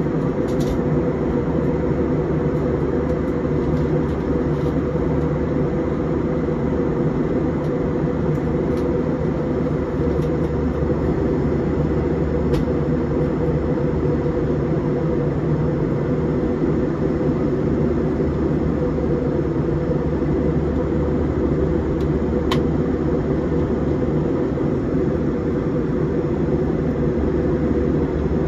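Steady cabin drone of an Airbus A321 in flight, a deep, even rush of engine and airflow noise. A few faint clicks come through it, one near the start, one about halfway and one near the end.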